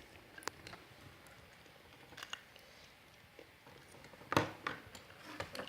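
Scattered light clicks and knocks of small parts being handled, a small motor and its wires being worked through the hole in a solder-wire box, with the loudest knock about four seconds in.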